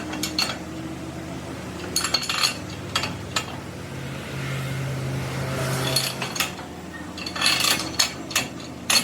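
Metal tools and steel parts clinking and knocking as they are handled, in scattered groups of sharp strikes, with a steady low hum for a couple of seconds mid-way.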